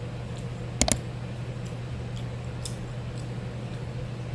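Mouth sounds of eating fried chicken wings: faint smacking clicks while chewing, with one sharper double click about a second in.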